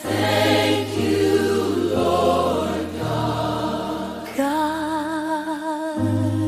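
Slow gospel-style music: a choir sings long, held notes over a low bass line that changes about once a second. About four seconds in, a single voice comes in on a held note with vibrato.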